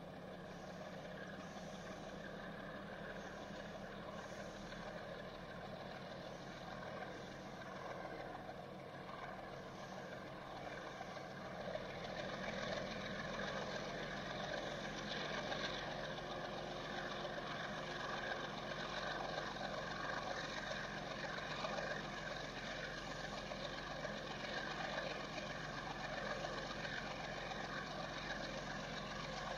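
Distant Indian Railways WDG4G diesel-electric freight locomotive accelerating with a tanker train, its engine working under load in a steady drone that grows louder about a third of the way in as the train comes closer.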